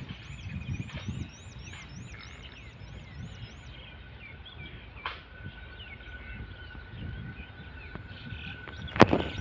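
Outdoor animal calls: a fast run of repeated high rising chirps, about four a second, that stops a little under four seconds in, over scattered bird-like chirps. A steady thin high tone sets in at about the same point, and one sharp knock sounds just before the end.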